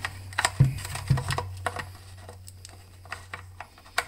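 Irregular light plastic clicks and taps as the chainsaw's fuel tank cap is handled and screwed back onto its filler. The sharpest clicks come about half a second and a second in and again near the end, over a steady low hum.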